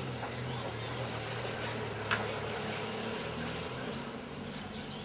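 A steady low buzzing hum, with faint high chirps and a single sharp click about two seconds in.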